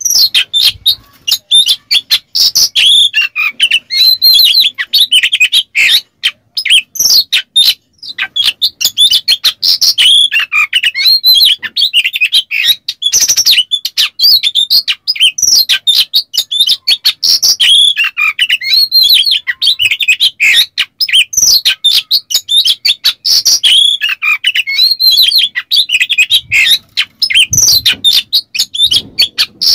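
Oriental magpie-robin singing a fast, continuous song of whistles packed with harsh rasping and clicking notes. The song breaks off briefly about a second in and again around six to eight seconds, then runs on.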